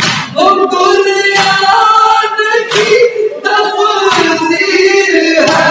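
A noha chanted by male voices, with the crowd of mourners beating their chests in unison (matam) on the beat, a sharp slap about every second and a half.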